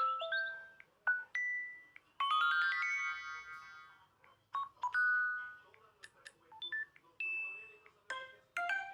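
LG K22 smartphone playing a run of different short electronic chimes and jingles one after another, each lasting under a second. A longer ringing chord comes partway through, and a quick run of notes comes near the end.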